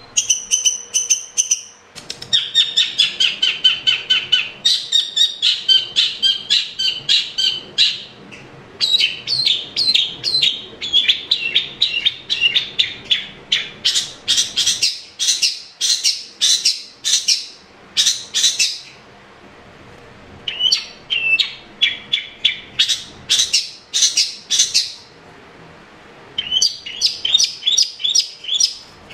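Long-tailed shrike (cendet) in full song: fast runs of sharp, repeated chattering notes, several a second, in bouts broken by brief pauses.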